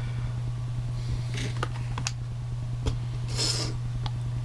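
Small handling noises: a few light clicks and a brief rubbing rustle about three quarters of the way through, as a hand moves toward the solder reel. Under them runs a steady low hum.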